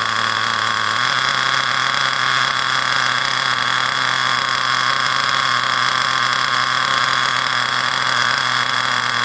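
Ansmann BigBlock .28 nitro engine in a 1/8 Virus 2.0 buggy running steadily with a high-pitched whine, on its first tank of break-in.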